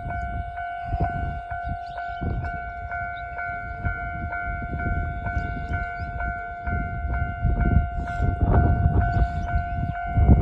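Japanese railway level-crossing warning bell ringing in its steady electronic ding-ding, about two strikes a second, signalling a train is due. A low rumble builds beneath it over the last few seconds.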